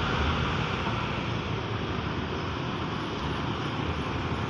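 A large coach bus engine running at low speed as the bus makes a slow U-turn, under steady road traffic noise.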